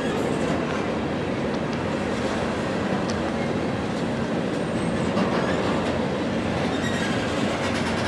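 Norfolk Southern freight train's cars rolling past: a steady rumble and rattle of steel wheels on the rails, with a few faint high wheel squeals.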